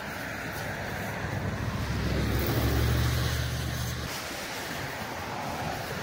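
A vehicle driving past on the road, a rushing tyre-and-engine noise with a low rumble that swells to its loudest about three seconds in and then fades.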